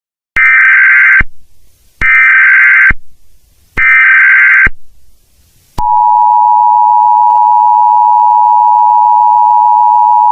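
Emergency Alert System header: three short bursts of screeching digital data tones about a second apart, then the two-tone EAS attention signal held steady for about five seconds, marking the start of an emergency broadcast.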